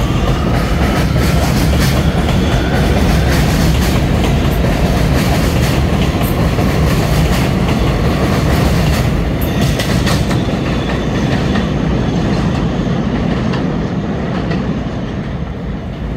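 New York City Subway R211T open-gangway train pulling out and running past on elevated track: a steady rumble with wheels clicking over rail joints and a rising motor whine in the first few seconds, fading as the last cars go by near the end.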